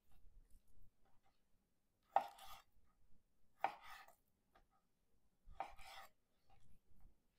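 Santoku knife cutting raw chicken breast into nugget-sized pieces on a cutting board: three separate cuts, each a brief knock of the blade meeting the board, a second and a half to two seconds apart.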